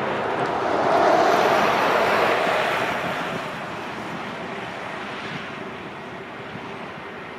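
Jet airliner going past: a rush of engine noise that swells to its loudest a second or two in, then slowly fades, with wind buffeting the microphone.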